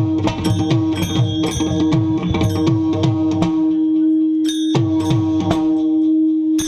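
Mridang drumming in devotional music: bass strokes that slide down in pitch and sharp treble strokes, in a quick rhythm over a steady held drone note. The bass strokes drop out for about a second midway, then return.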